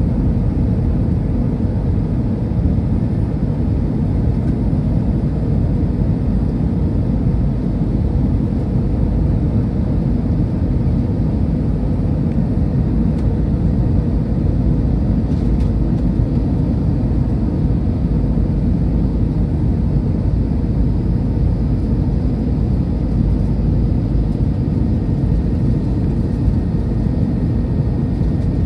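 Steady low roar inside the cabin of an Airbus A319-100 on final approach, heard from a window seat beside the wing: jet engine and airflow noise.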